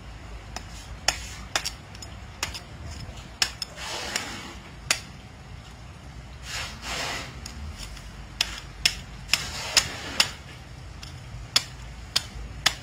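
Large knife working at monkfish skin and flesh: a string of sharp, irregular clicks and knocks from the blade, with a few longer rasping scrapes between them.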